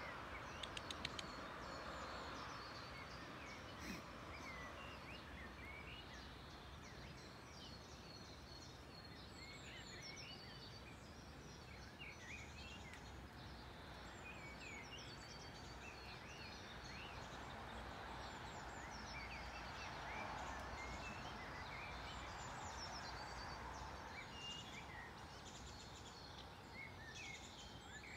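Small songbirds chirping and singing in the background, many short twittering calls scattered throughout over a steady low hiss of outdoor noise, with a few quick ticks about a second in.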